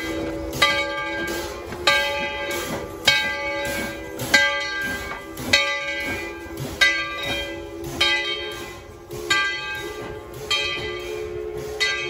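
A steam locomotive's bell ringing steadily, about one stroke every second and a quarter, each stroke ringing on, over a steady hum.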